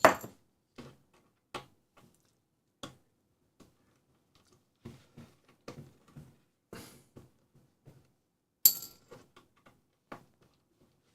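Scattered small clicks, taps and handling noises of a screwdriver and screws on a plastic trouble-light housing as it is taken apart, with one louder, ringing metallic clink about nine seconds in.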